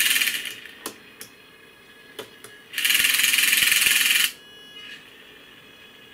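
Small AC servo motor and gear train of an aircraft engine temperature indicator whirring in two bursts, about a second and then about a second and a half, as it drives the needle and mechanical digit counter to a new temperature. A few light clicks fall between the bursts.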